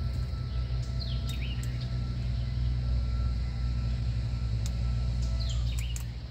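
Pontoon boat's motor running steadily, a low rumble with a faint steady whine over it. A bird chirps twice, about a second in and again near the end.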